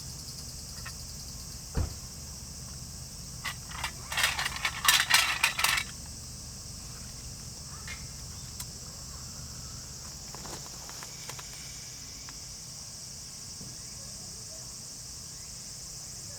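A steady, high-pitched chorus of insects chirring. About four seconds in comes a flurry of sharp clicks and light clatter lasting about two seconds, louder than the chorus, with a single dull thump shortly before it.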